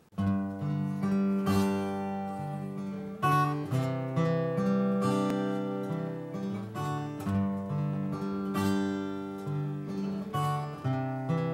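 Solo acoustic guitar playing a song's introduction. Chords are picked and strummed over a moving bass line, each chord left ringing.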